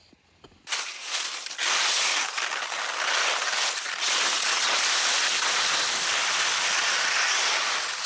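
Skis sliding fast over snow on a downhill run: a steady, rough hiss that starts suddenly about a second in, after a moment of quiet.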